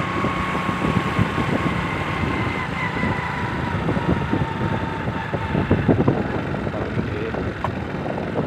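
A vehicle running while moving, under heavy wind buffeting on the microphone, with a thin steady whine that drifts slightly lower and fades out about five seconds in.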